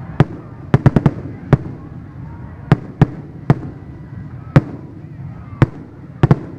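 Fireworks going off: about a dozen sharp bangs at uneven intervals, with a quick cluster of four about a second in and a close pair near the end.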